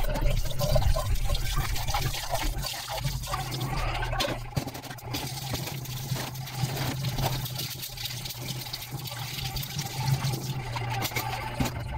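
Tap water running from a plastic faucet into a stainless steel sink, splashing over dishes as they are rinsed by hand, with a few light clinks of a glass and spoons.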